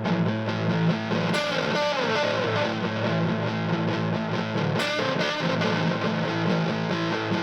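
Electric guitar played through overdrive and a delay pedal, sustained low chords with sliding lead notes and their echoing repeats.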